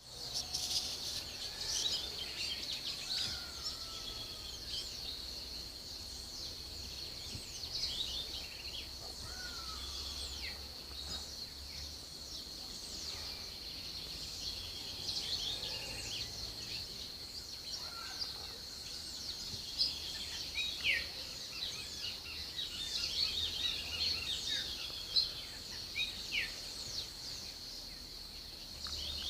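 Many birds chirping and calling in short, quick, overlapping notes and sweeps, over a steady high-pitched whine.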